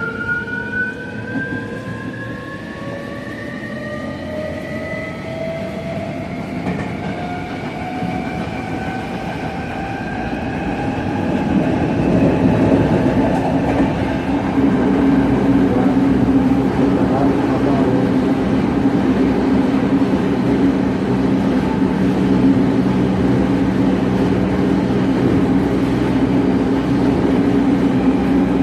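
Tokyo Metro 07 series subway train accelerating on its VVVF inverter drive: the traction motors whine in several tones that climb together in pitch over the first twelve seconds or so. The whine then gives way to a louder, steady hum and rumble of the train running at speed in a tunnel.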